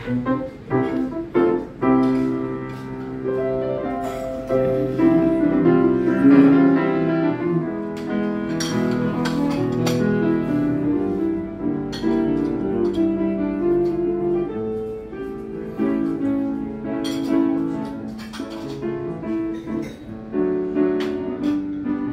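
Grand piano played live: a melody over held chords that fills the room throughout.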